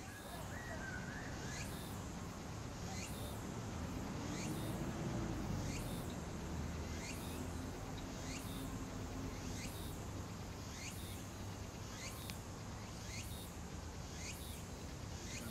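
A bird repeating a short, high, thin call about once a second, evenly spaced, over steady outdoor background noise, with a faint low drone rising and fading in the middle.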